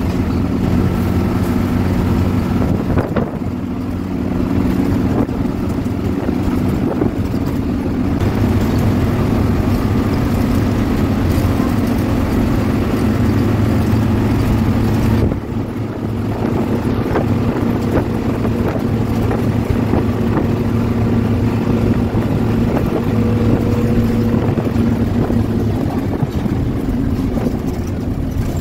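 A coach's engine running under load with road noise, heard from inside the cabin at speed. The engine note is steady, with two brief drops in level, about three and fifteen seconds in.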